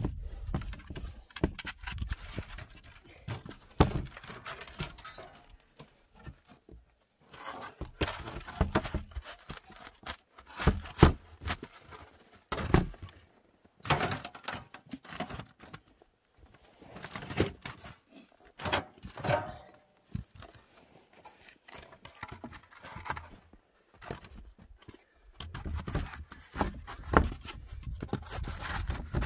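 Irregular knocks, scrapes and rustles of hand work: a wooden board is pushed into place over a wall opening, then white slabs are set and shifted against it, with a few sharper knocks among them.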